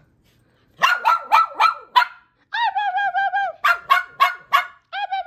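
Dog barking excitedly in two quick runs of short, sharp barks, with high wavering whines between them and near the end, as it is greeted by its owner.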